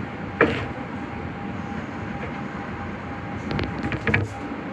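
Nagoya subway Higashiyama Line 5050-series train standing at a platform, with a steady hum. A single sharp knock comes about half a second in, and a short cluster of clicks and knocks comes near the end.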